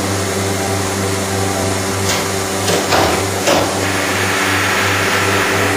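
A vacuum press's pump motor hums steadily. Near the middle come about four short knocks and clatters as the press's frame and sheet are handled. From about four seconds in, a steady hiss joins the hum.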